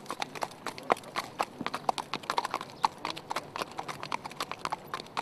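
Hooves of several horses, a racehorse and its lead ponies, clip-clopping at a walk on hard pavement: a quick, uneven run of sharp hoof strikes.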